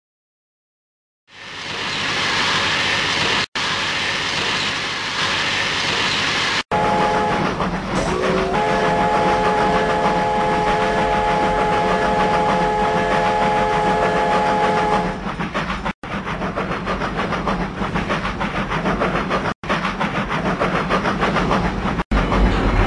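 A train. After about a second of silence comes a hiss, then a whistle sounding a chord of several notes held for about six seconds, then the train running with rhythmic wheel clatter. The sound cuts out abruptly for an instant several times.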